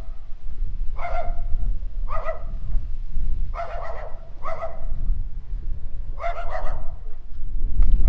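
A dog barking, about five short barks spaced irregularly over several seconds, over a steady low rumble.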